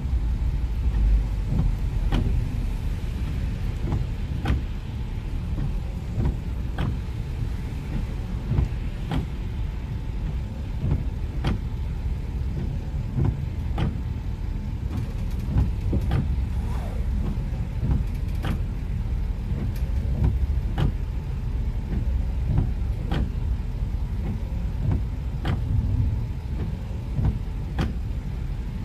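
Steady low rumble of a car driving on a wet road, heard from inside the cabin. Over it, the windshield wipers make a short knock at the end of each sweep, very evenly, about every two and a half seconds.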